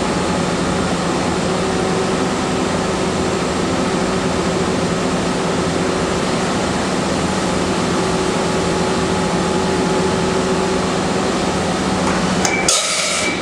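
Mazak Nexus 510-II 5-axis vertical machining center running a simulated automatic tool change, with a steady machine hum held on a few fixed pitches. Near the end comes a brief hiss.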